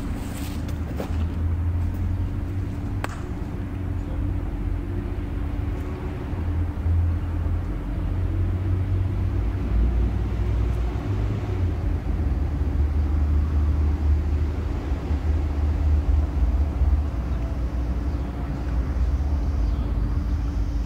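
Steady low rumble of road traffic on a nearby bridge, rising and falling slightly, with a faint steady hum.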